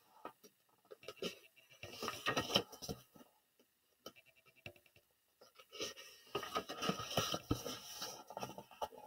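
Paper rustling as the pages of a paperback picture book are turned by hand, in two bouts: a short one about two seconds in and a longer one near the end.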